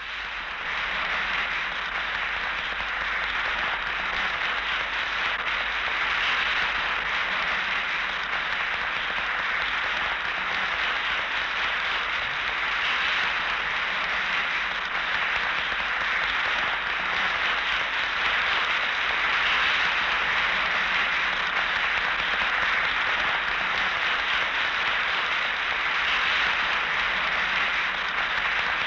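Large crowd applauding, a long unbroken ovation that swells up within the first second and then holds steady.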